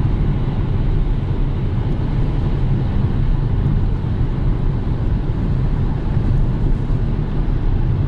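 Steady low road and tyre rumble with wind noise, heard inside the cabin of a Kia Soul cruising at about 100 km/h on the highway under cruise control. It holds even throughout, with no separate events.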